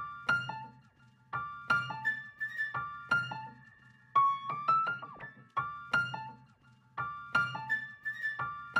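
Background music: a light piano or electric piano melody of short struck notes that ring and fade, repeating a short phrase.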